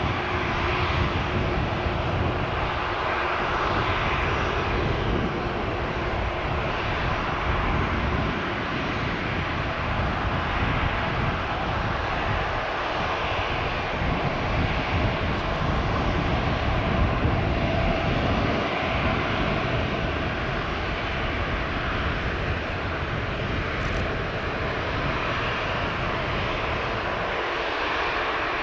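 Boeing 787-9 airliner's twin jet engines running steadily at low power as the aircraft taxis, a continuous jet hum and rumble with faint steady tones.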